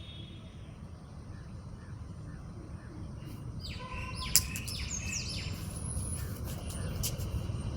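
A quick run of shrill bird calls, short notes clustered together about halfway through, over a steady low background rumble. A single sharp click comes in the middle of the calls.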